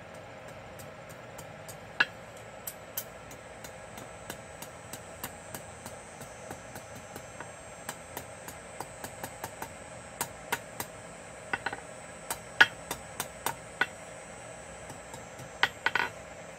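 A hammer tapping quarter-inch hot steel on an anvil, drawing out a thin rat-tail taper on the end of the bar. Quick, light blows come at about two a second, with a few harder strikes, over a steady hum.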